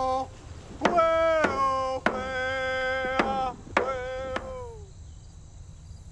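A voice singing long held notes over steady strikes on a hand frame drum beaten with a stick. The last sung note slides down in pitch about five seconds in, and the song fades out.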